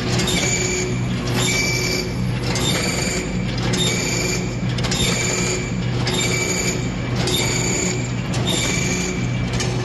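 Automatic wood-dowel cutting machine running, its feed-and-cut cycle repeating about once a second with a high ringing tone in each cycle.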